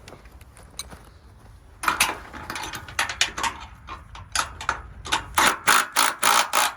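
Metal clicking and rattling from the boat lift's steel cable hardware being worked by hand. It starts about two seconds in as a run of sharp clicks, turns into strong strokes about three a second near the end, then stops abruptly.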